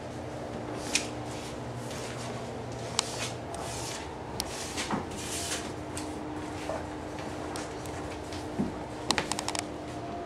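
Rustling and scattered light knocks and clicks from papers and a cardboard box being handled, with a quick run of clicks near the end over a faint steady hum.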